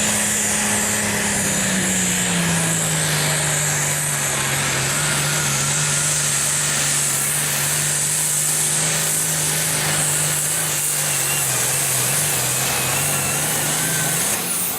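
Light limited super stock pulling tractor's turbocharged diesel engine at full throttle under load during a pull. The steady engine note drops in pitch about two seconds in as the sled bears down, then holds until the throttle comes off near the end.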